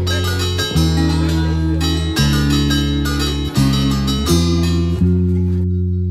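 Background music: plucked guitar over sustained bass notes that change about every second and a half, the higher plucked notes dropping away near the end.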